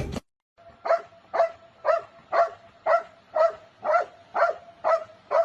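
A dog barking in a steady rhythm, about two barks a second.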